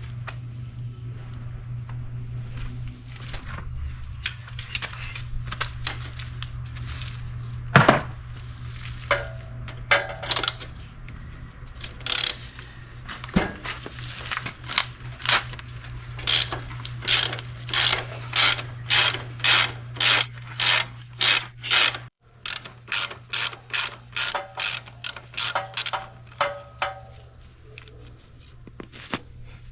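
Hand ratchet wrench clicking as it works a bolt on a motorcycle, the clicks coming in quick regular strokes of about two a second through the latter half, with one loud metal clank about eight seconds in. A steady low hum runs underneath.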